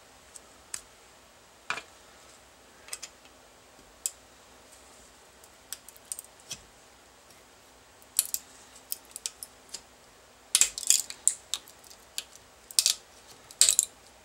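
Metal pick scraping and prying at a hole in a 3D-printed plastic part held in a steel bench vise: irregular small clicks and scratches, sparse at first and coming in busier, louder clusters from about halfway through.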